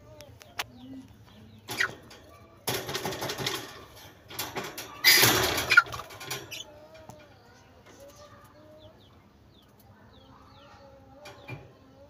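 Caged lovebirds: several bursts of wing flapping and rustling in the first half, the loudest about five seconds in, then a few faint short high chirps.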